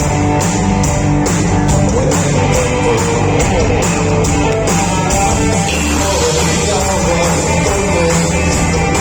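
Rock band playing live: singing over electric guitar and drums with a steady beat.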